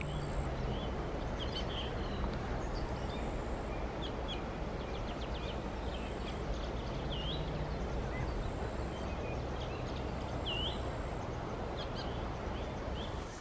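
Steady rush of river water running over rocks in the shallows, with birds calling over it: short high chirps and two dipping whistled notes, a few seconds apart.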